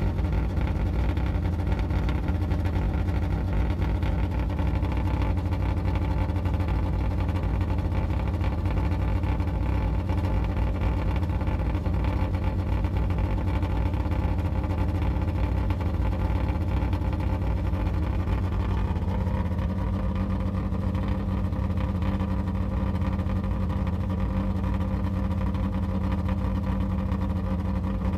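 Yugo's four-cylinder engine idling with an exhaust leak. The idle rises slightly about two-thirds of the way through, then holds steady.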